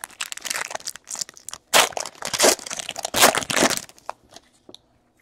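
Trading-card pack wrapper torn open and crinkled by hand: a run of sharp rustling tears, loudest around the middle, dying away to a few light ticks near the end.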